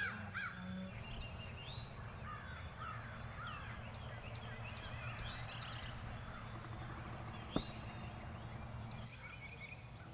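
American crow cawing in a repeated series that ends about a second in, then scattered songbird chirps over a faint steady low hum, with one sharp click near the three-quarter mark.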